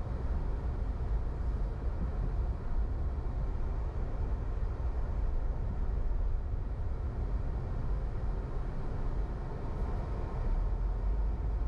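A car driving slowly on city streets: a steady low rumble of engine and tyre noise.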